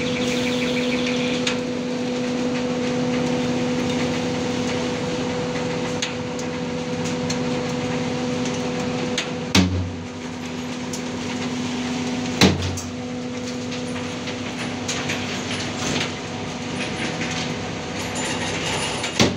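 Hydraulic truck tippler at work: a steady machine hum with three loud, sharp metallic clanks, one about halfway, one about three seconds later and one near the end, plus a few lighter knocks.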